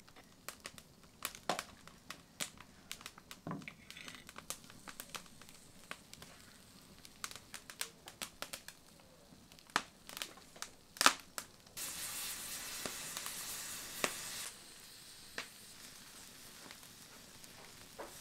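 Open wood fire crackling, with many scattered sharp pops and snaps. A steady hiss comes in a little past the middle and stops suddenly about two and a half seconds later.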